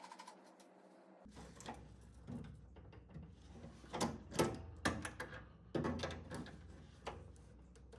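Scattered clicks and knocks of hand tools and nuts while the heating element of a resistive steam humidifier is fastened back in place, several separate strikes a second or so apart.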